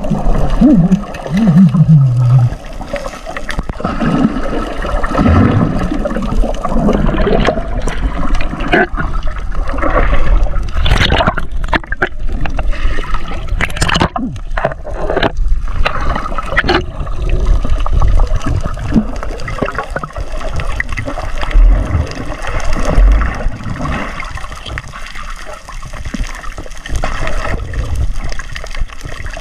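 Underwater sound picked up through a submerged camera: a steady rush and gurgle of water and bubbles, with a cluster of sharp clicks or knocks about halfway through.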